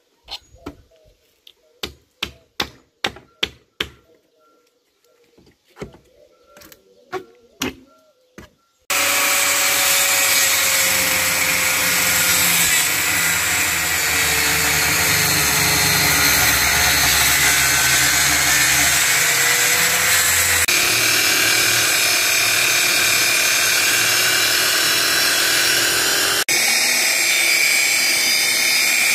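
Hammer blows on a wooden pallet, about a dozen irregular strikes. Then, about nine seconds in, a corded electric saw runs steadily and loudly, cutting a wooden board.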